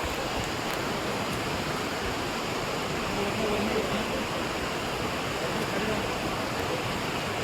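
Steady rush of flowing water, a monsoon stream or small waterfall running.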